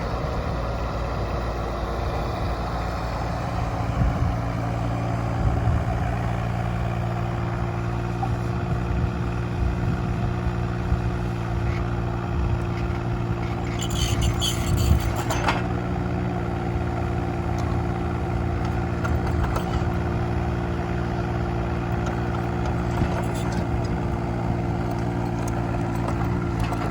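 Kubota K008-3 mini excavator's small three-cylinder diesel engine running at a steady speed, with a brief metallic clatter about halfway through.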